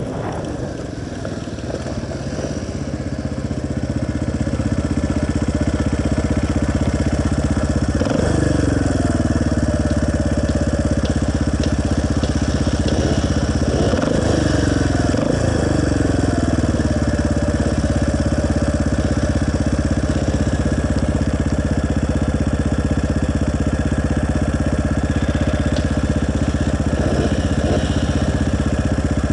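Motorcycle engine idling steadily. It is blipped a few times, once about eight seconds in and three times around fourteen to sixteen seconds in, and each time the revs fall back to idle.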